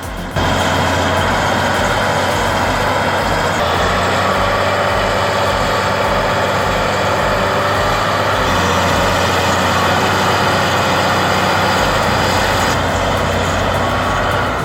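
Large crawler bulldozer's diesel engine running steadily with a deep, even throb, cutting in abruptly just after the start.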